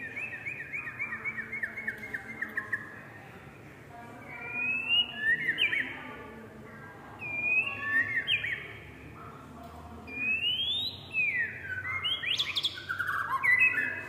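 White-rumped shama singing: a fast run of repeated whistled notes, then several loud phrases of rising and falling whistles with short pauses between them.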